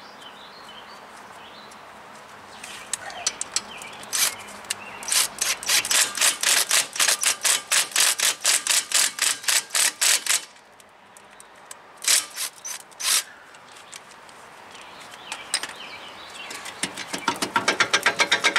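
Rapid, even metallic clicking from a hand tool ratcheting on the rear brake assembly. It comes in runs of a few seconds at about four or five clicks a second, with a short burst of a few clicks in the middle and a faster run near the end.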